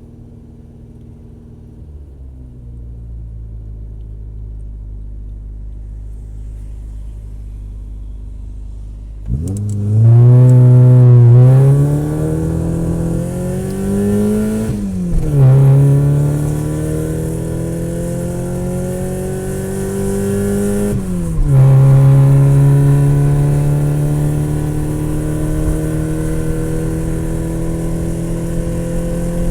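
Race car engine running low and quiet for about nine seconds, then suddenly revving hard and accelerating. Its pitch climbs and drops back several times as it shifts up through the gears.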